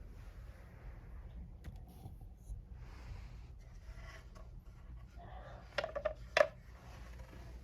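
A dog barking in the distance: a quick run of short barks about six seconds in, the last one the loudest, over faint background rustling.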